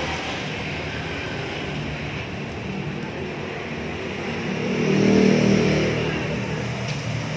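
Steady vehicle-engine rumble, with an engine swelling louder about five seconds in and then easing off again.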